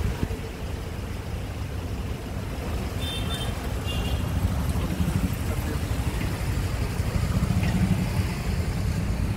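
Slow, congested city road traffic: car and taxi engines idling and motorcycles and scooters passing close by, a steady low rumble that grows louder in the second half. Two brief high-pitched tones sound about three and four seconds in.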